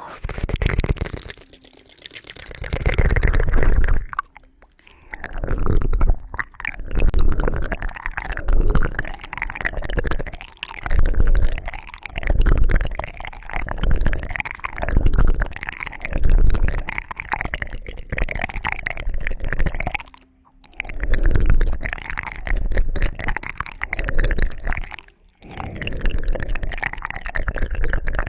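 Close-miked ASMR sounds: wet squishing and rubbing right against the microphone, with a deep rumble. They swell and fade about once a second, with short breaks about 4, 20 and 25 seconds in.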